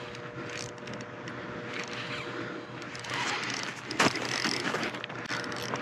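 Spinning reel cranked steadily against a hooked fish, a mechanical ratcheting with one sharp click about four seconds in.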